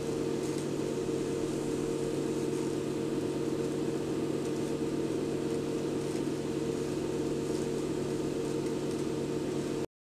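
Steady electric hum and whir, a few low tones held over a faint hiss, cutting off abruptly just before the end.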